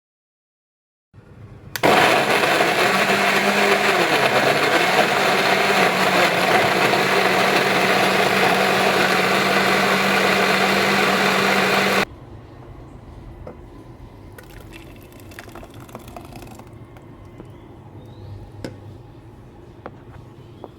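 Electric kitchen blender running steadily at full speed for about ten seconds, then switched off abruptly; a few faint clicks and knocks follow.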